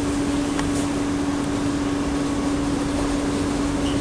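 Steady cabin noise inside Singapore MRT C151-series trains with the doors shut: a constant hum holding one pitch over an even air-conditioning hiss.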